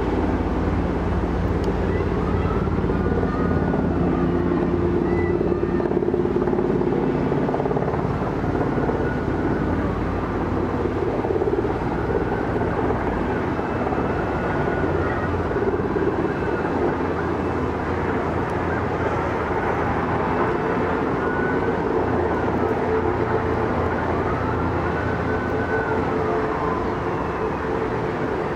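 Military rotorcraft running: a steady drone of rotors and turbine engines with a low hum. A faint whine rises and falls every few seconds.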